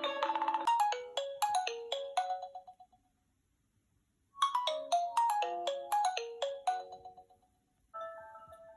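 Nokia phone ringtone melody: a short, quick phrase of pitched notes plays, stops for about a second and a half, then repeats. Near the end a different tone begins.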